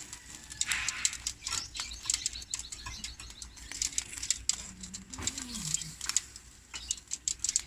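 Pork belly sizzling on an electric grill plate: fat spitting in many small, sharp pops and crackles over a steady high hiss.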